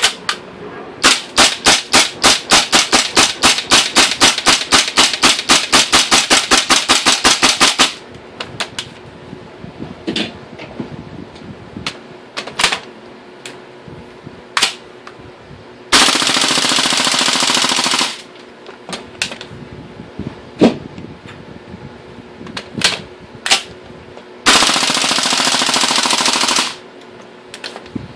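LM4 gas-blowback airsoft rifle on propane firing a long full-auto burst of about seven shots a second for some seven seconds, its bolt cycling on each shot. Later come two dense, steady rapid noises of about two seconds each, with scattered single clicks of handling between.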